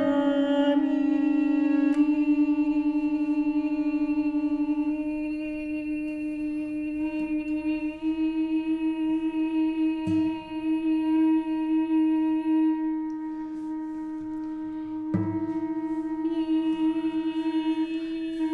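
Tenor recorder holding long, steady low notes that change pitch only a few times. Plucked classical guitar notes sound under it at the start, about two seconds in, ten seconds in and fifteen seconds in.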